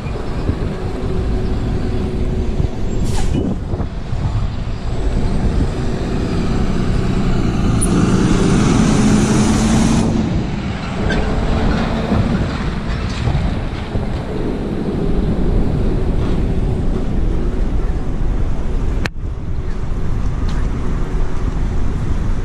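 Street traffic with a truck passing close by, its engine and road noise swelling to their loudest about eight to ten seconds in. A single sharp click about nineteen seconds in.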